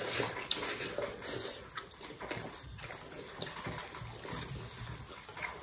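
Close-up eating sounds: wet chewing and lip smacks, with fingers squishing rice and curry, a scatter of small irregular clicks.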